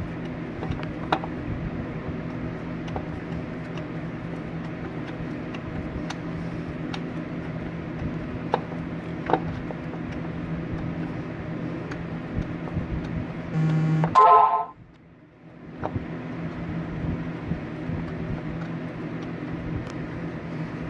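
Light metallic clicks and taps from a starter motor being handled and worked loose in a car's engine bay, over a steady low hum. About fourteen seconds in there is a short, loud beep-like tone, then the sound drops out for a second or two before the hum returns.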